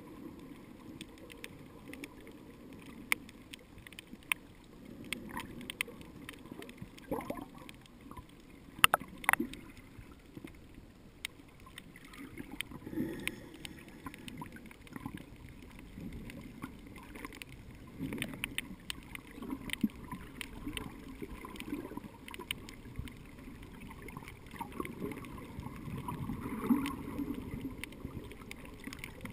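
Muffled underwater sound picked up through a GoPro's sealed waterproof housing: a low wash of moving water with swells, peppered with scattered sharp clicks and pops.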